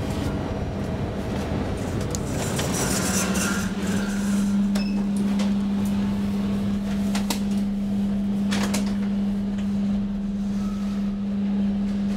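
A machine hum that starts about three seconds in, rises briefly in pitch, then holds at one steady low pitch, with a few sharp clicks along the way.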